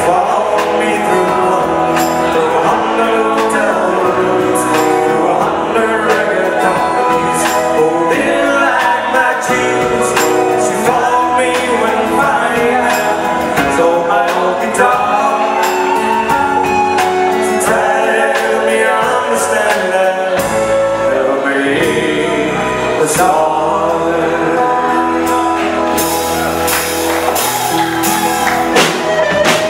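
Live pop-rock band playing a song with a male lead singer over guitars, keyboards and a drum kit; the cymbal strokes get denser near the end.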